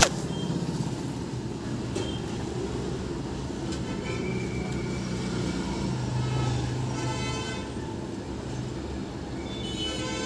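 Steady traffic noise of passing vehicles, with a few horn toots in the second half. A sharp click sounds at the very start.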